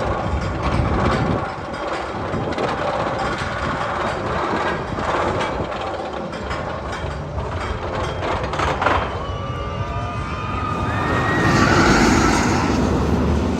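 Roller coaster sounds: rapid mechanical clicking and rattling, giving way about nine seconds in to squealing tones that glide up and down over a louder rushing swell.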